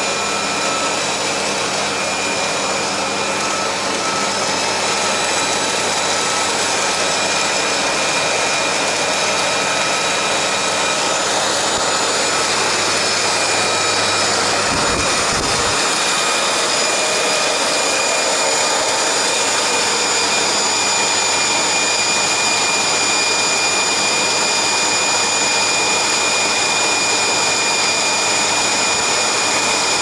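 Bosch canister vacuum cleaner running steadily: a continuous rushing noise with a high whine over it.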